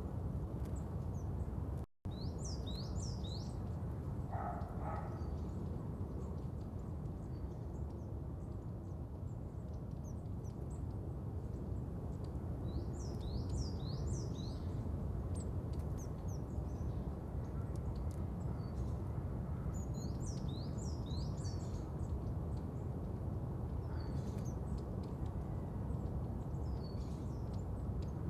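Birds chirping in quick high bursts every few seconds over a steady low background noise, which drops out for an instant about two seconds in.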